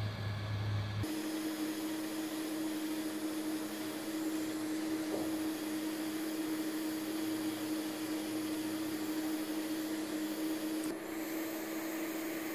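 Handheld heat gun blowing steadily, its fan motor humming, heating a phone's cracked screen to soften the adhesive before the glass is pried off. The hum changes pitch about a second in.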